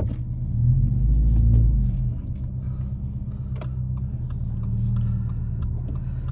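Car engine and road noise heard from inside the cabin while driving: a steady low rumble that swells about a second in, with a few light clicks and knocks.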